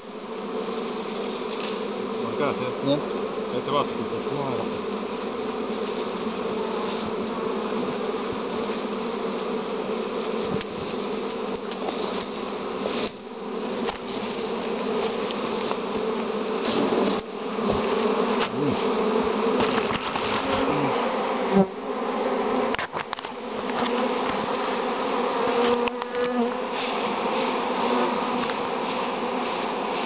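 A honeybee swarm buzzing in a dense, steady hum, with a few brief dips in level.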